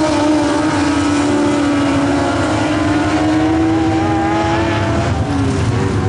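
A pack of dirt-track race car engines running at speed together through the turns: a loud, steady drone of several overlapping engine notes whose pitches drift slightly as the cars pass.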